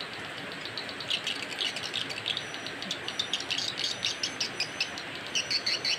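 Recorded swiftlet calls played through two horn tweeters on a swiftlet-house amplifier: rapid, high, twittering chirps of a swiftlet lure call, growing denser near the end.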